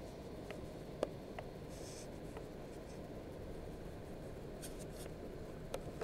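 Inside a moving suburban electric train: a steady low rumble with a handful of sharp ticks, the sharpest about a second in, and two brief faint hisses.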